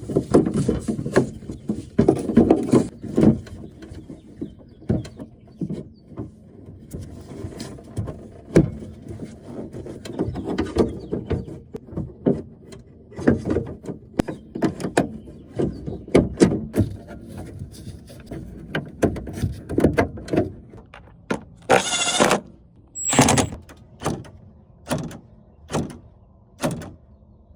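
Clicks, knocks and squeaks of hands and tools working on a Ford Super Duty door's latch, lock rod and lock actuator. Near the end come two short, loud buzzes about a second apart, then a run of evenly spaced clicks about one a second.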